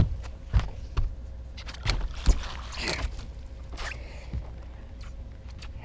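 A hooked small fish is landed in a net at a bass boat's side: sharp knocks and thumps on the boat deck, with a short splash and rush of water about two and a half seconds in as the fish is lifted out in the net.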